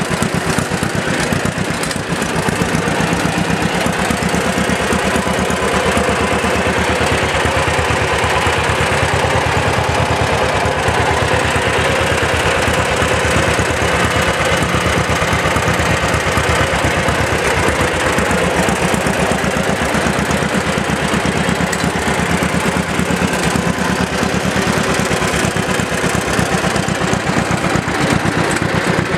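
Engine of a restored 1946 John Deere LI tractor running steadily, with a fast, even firing beat.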